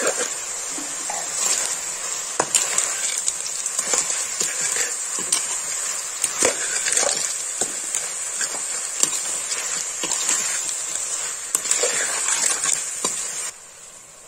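Food sizzling as it fries in a pan, stirred with a utensil that clicks and scrapes against the pan many times. The sizzle drops away sharply near the end.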